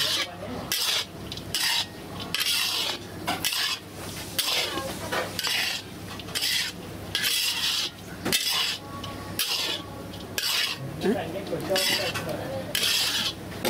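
Metal spatula stirring and scraping a dry, grainy boondi mixture around a metal kadai. The scraping strokes come irregularly, about once a second.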